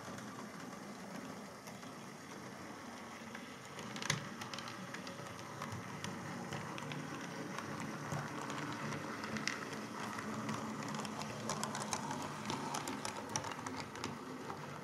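A model diesel locomotive running along the track: a low motor hum with many irregular clicks from the wheels on the rails, one sharper click about four seconds in.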